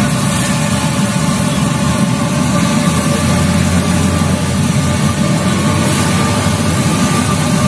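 Steady low roar of a gas burner under a large wok of oil, with the hiss of tofu deep-frying.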